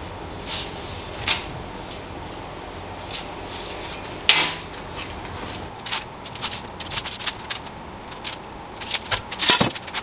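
Scattered light clicks and knocks over a steady low background, with one louder knock about four seconds in and a quick, irregular run of clicks over the last few seconds.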